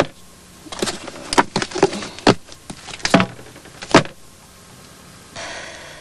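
Books being handled and set down on a counter and shelf: a string of irregular sharp knocks and thumps, about seven in the first few seconds.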